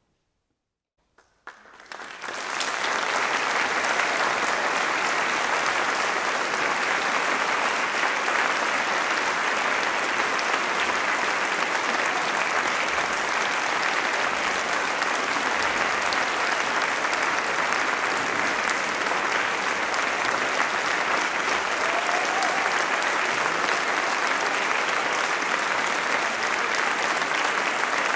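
About a second and a half of silence, then an audience breaks into applause that builds quickly and carries on as steady clapping.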